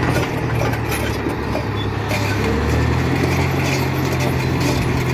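Diesel engine of a Caterpillar crawler dozer running under load as it pushes dirt with its blade, a steady low drone that grows stronger about halfway through.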